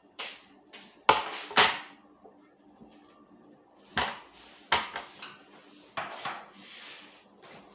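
Dishes and kitchen utensils clattering in a run of separate sharp knocks, the loudest pair about a second in, over a faint steady hum.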